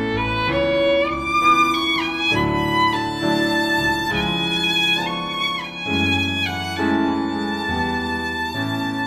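Background music: a violin melody with slow, gliding notes over a sustained low accompaniment.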